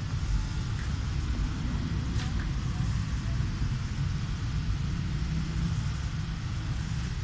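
Steady low outdoor rumble of urban background noise, with a faint tick about two seconds in.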